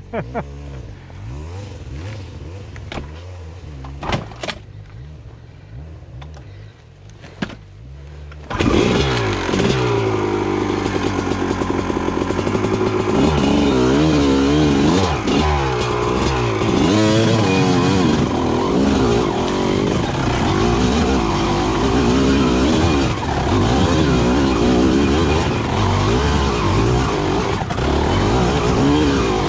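Honda CR250R two-stroke dirt bike engine with an expansion-chamber pipe, idling low with a few clicks, then about eight seconds in opened up hard and held at high revs, the pitch rising and falling as the throttle works the bike up a steep hill.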